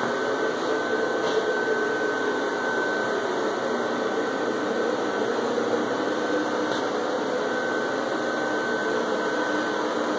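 Airblown inflatable's built-in blower fan running steadily: an even rush of air with a thin, constant whine above it.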